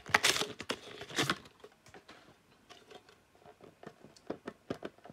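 Packaging rustling and tearing in two loud rips within the first second and a half, followed by a run of small clicks and taps as trading cards are handled.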